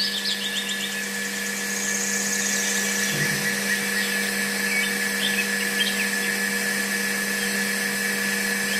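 Small electric motor on a miniature model tractor running at a steady speed with a whine, turning a rubber belt that drives a model hand pump's wheel. Birds chirp faintly.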